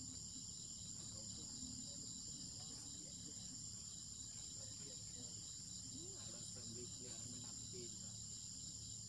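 Steady high-pitched insect chorus, a constant whine.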